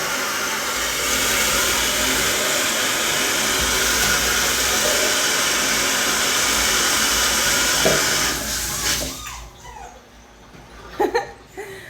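Handheld hair dryer blowing steadily, switched off about nine seconds in. A puppy's short whimpers follow near the end.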